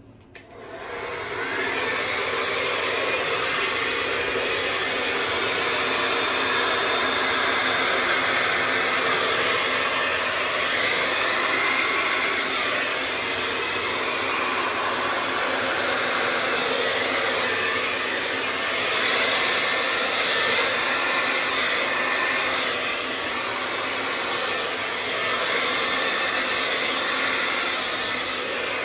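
Hair dryer switched on in the first second and running steadily, blowing air; its loudness rises and falls slightly as it is moved over the canvas.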